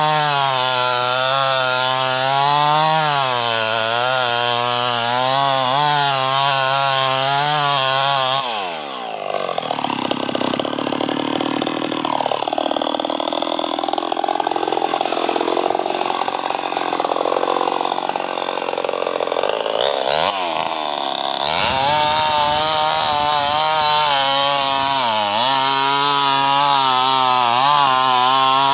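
Chainsaw cutting mahogany, its engine note wavering up and down under load. About eight seconds in, the pitch falls and the sound turns rougher and noisier for roughly twelve seconds, then the clear high engine note comes back.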